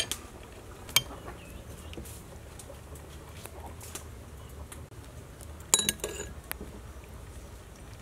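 Metal spoon clinking against a soup bowl: a sharp clink at the start, another about a second in, and a quick cluster of clinks near six seconds, over a faint steady background.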